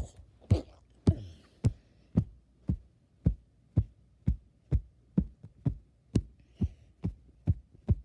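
A steady series of thumps, about two a second, some sixteen in a row, that stop suddenly at the end.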